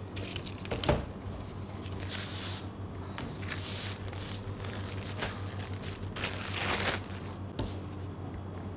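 Irregular rustling and crinkling of a plastic cake collar and baking paper being handled, in short bursts with a couple of light knocks, over a steady low hum.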